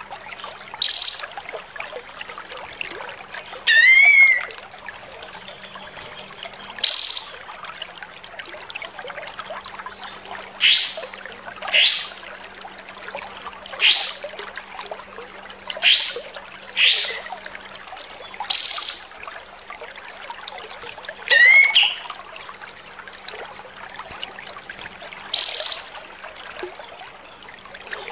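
Caged kapas tembak, a bulbul, calling again and again with loud, harsh, sharply rising whistled calls every one to three seconds. A few of the calls break into a quick run of notes sliding down. A steady hiss runs underneath.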